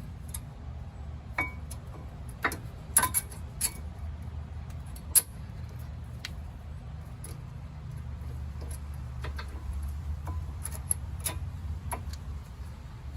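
New front brake pads being fitted into the caliper bracket's hardware clips: scattered metallic clicks and clinks, the sharpest about five seconds in, over a steady low hum.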